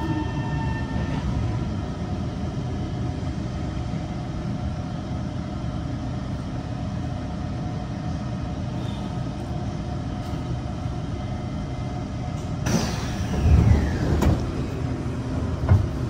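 Kawasaki C151 metro car coming to a stop: the falling whine of its traction motors fades out about a second in, leaving the steady rumble and hum of the car at a standstill. Near the end comes a sudden hiss, followed by a sharp click and a couple of low thumps.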